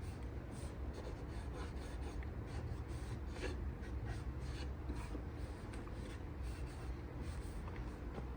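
A tack cloth rubbing over the sanded wooden tabletop, irregular short scratchy wiping strokes that lift off the sanding dust, over a steady low background rumble.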